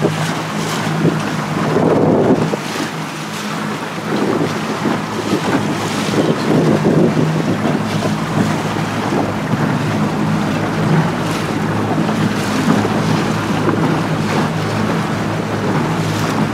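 A motorboat under way: its engine running with a steady low hum, under wind buffeting the microphone and the splash of choppy water against the hull.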